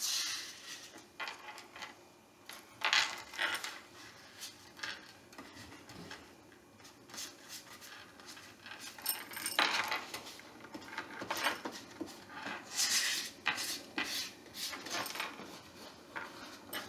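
A paintbrush scraping and dabbing paint across a paper plate in short, irregular strokes.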